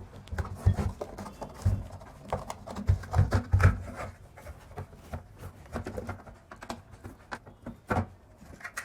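Irregular clicks, knocks and rubbing of the home theater's parts being handled and opened up by hand, with a cluster of louder knocks about three seconds in and another near the end.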